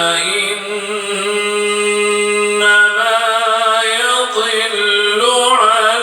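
A man reciting the Quran in melodic tajweed style, drawing out long vowels on sustained notes that step up and down in pitch.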